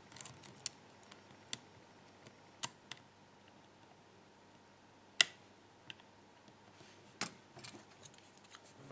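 Hook pick working the pins of a seven-pin Sargent lock cylinder under a pry-bar tensioner: scattered faint clicks and metal ticks, with one sharper click about five seconds in.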